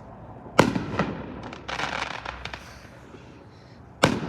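Firecrackers going off: a sharp bang about half a second in and a second one just after, a stretch of smaller pops and crackle, then another sharp bang near the end.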